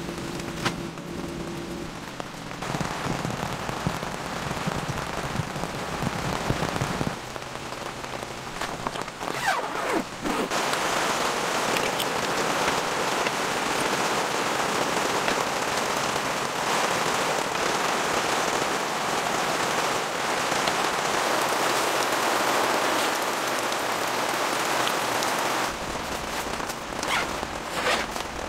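Steady rain falling on a tent, growing heavier a few seconds in and again about ten seconds in, with a few faint knocks and clinks.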